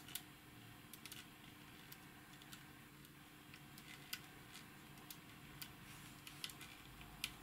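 Near silence with a few faint, irregular small clicks as the opened altimeter's metal gear mechanism is handled, over a low steady hum.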